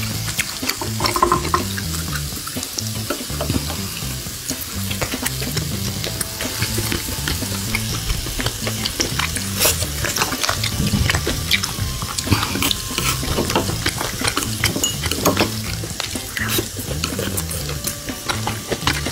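Beef sizzling on a stone grill plate over a tabletop gas burner, with sharp clicks of chopsticks against plates and dishes, over background music with a stepping bass line.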